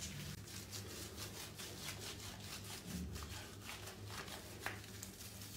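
Hands rubbing and scrubbing a wet cat's soaked fur: a run of short, soft rubbing strokes over a steady low hum.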